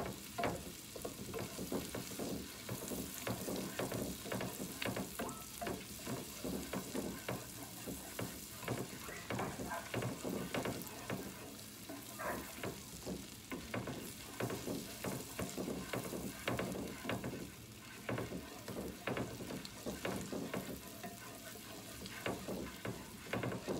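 Butter melting and sizzling in a hot skillet, with frequent irregular scrapes and taps of a utensil stirring it around the pan.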